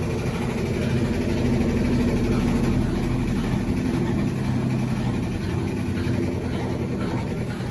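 Brastemp 12 kg washing machine running, a steady motor and belt-drive hum, with its broken belt guard removed and its foot levelled against shaking.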